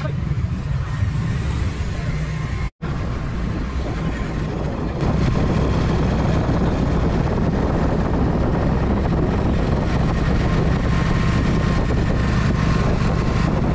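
Steady engine rumble with wind and road noise from vehicles moving along a road. The sound drops out for an instant a little under three seconds in, and it is louder from about five seconds on.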